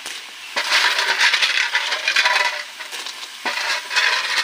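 Small freshwater clam shells clattering against each other and the metal wok as they are tossed and stirred by hand. The rattling comes in about three bursts.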